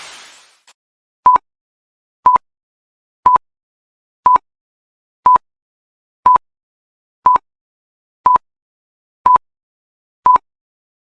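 Electronic interval timer beeping ten times, one short beep a second, all at the same pitch: a countdown between workout intervals.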